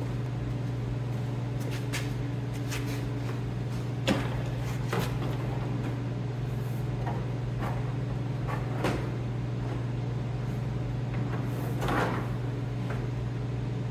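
Plastic fender parts being handled and fitted against the side-by-side: scattered knocks and clicks, the sharpest about four seconds in, and a longer scrape near the end. A steady low hum runs underneath.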